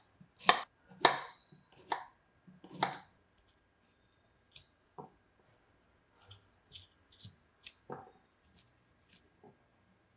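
A kitchen knife chopping through a cucumber on a wooden cutting board, four crisp chops in the first three seconds. After that come softer, scattered crunching clicks as the knife cuts wedges from amla (Indian gooseberries) held in the hand.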